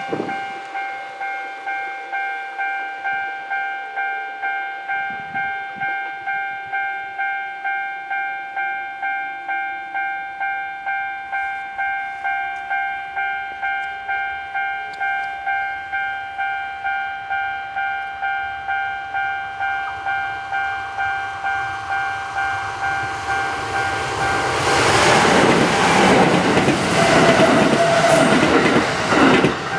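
Japanese railway level-crossing alarm bell ringing steadily, about one and a half strikes a second. In the last few seconds a Kintetsu electric train passes close by, its wheel and running noise swelling to the loudest sound before stopping abruptly.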